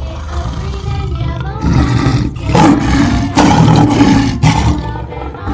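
Lion roaring: a run of loud, rough roars one after another.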